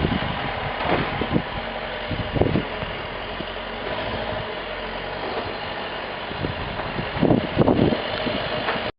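Snowplow truck's engine running steadily under a rushing noise, with a few louder low surges: about a second in, around two and a half seconds, and twice near the end.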